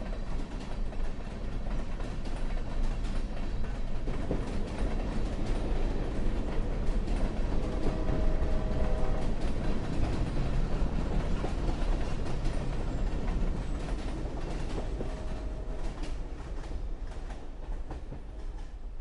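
A train passing on the rails: a steady rumble with the clickety-clack of wheels over rail joints. It swells to its loudest midway and fades near the end, with a brief faint steady tone about eight seconds in.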